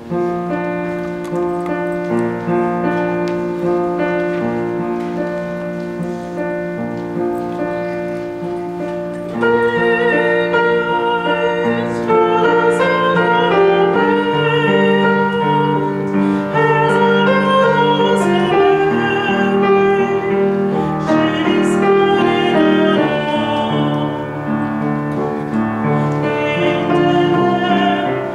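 A mixed choir and female soloist singing with grand piano accompaniment. The opening chords are held, then about ten seconds in the music grows louder with a moving melody line.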